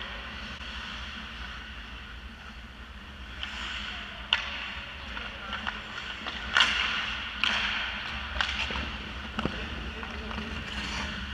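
Ice hockey play: skates scraping on the ice, and about five sharp cracks of sticks and puck as play comes to the net, the loudest about six and a half seconds in, over a steady low hum.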